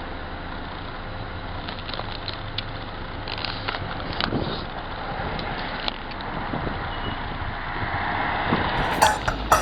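Steady outdoor background noise, with a few faint knocks and clicks.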